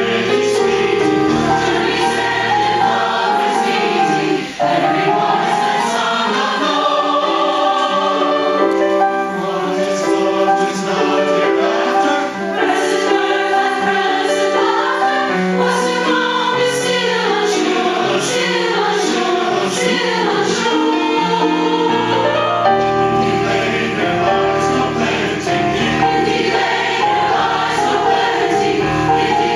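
Mixed choir singing a madrigal in several voice parts, with brief breaks between phrases about four and twelve seconds in.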